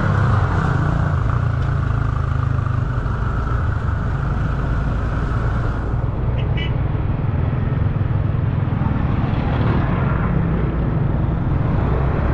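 Yamaha Aerox 155 scooter's single-cylinder engine running at speed under a steady rush of wind noise on the microphone. The higher hiss thins out about halfway through.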